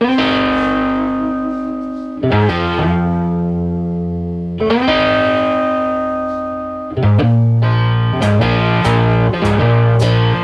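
Background music: distorted electric guitar chords left ringing, each held for about two seconds, then a faster rhythm with sharp strokes picks up about seven seconds in.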